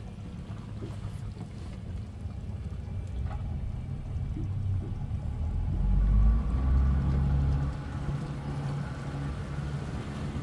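Yamaha 250 four-stroke outboard running as the boat cruises, a steady low rumble. A little past halfway the engine note climbs and the rumble swells louder for a couple of seconds, then settles at a higher, steady pitch.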